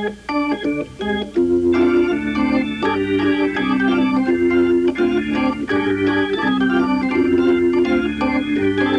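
Organ music: short, detached chords at first, then held chords over a bass line from about a second and a half in.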